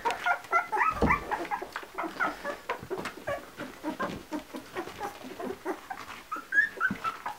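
Ten-day-old Labradoodle puppies squeaking and whimpering in many short, overlapping high chirps as they nurse, with a low thump about a second in.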